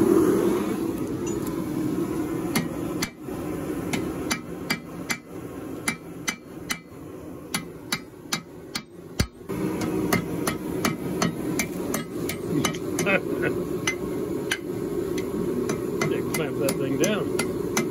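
Hand hammer striking a red-hot steel bar on an anvil, a couple of ringing blows a second with short pauses, over the steady hum of a propane forge and its electric blower.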